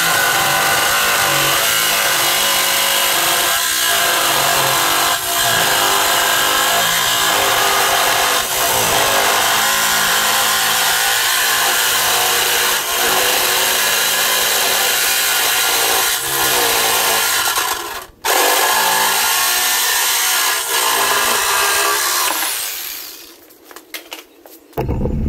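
Corded jigsaw cutting a round hole through the thin steel of an ammo can lid, a loud harsh buzz. It stops for a moment about three quarters of the way through, starts again, then runs down and stops near the end.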